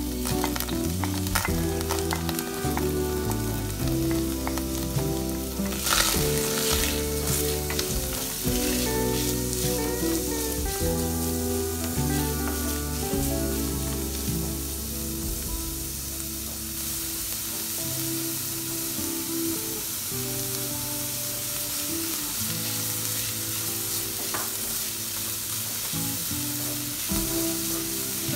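Diced onion sizzling in hot oil in a stainless steel pan, stirred and scraped with a wooden spoon, with a louder burst of clatter and crackle about six seconds in. Background music plays underneath, its bass dropping out about two-thirds of the way through.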